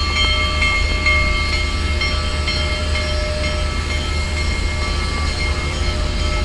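Big Boy steam locomotive's train rolling past on arrival: a steady heavy rumble with sustained high metallic tones from the wheels and rails.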